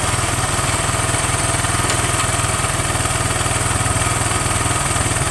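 ATV engine running steadily with an even, unchanging beat and no revving.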